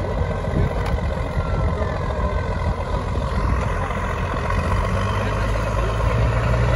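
Diesel engine of an MAN TGS 8x8 trial truck working hard under load as it crawls up a steep dirt slope, a continuous heavy rumble. The engine note steadies and grows louder in the last couple of seconds.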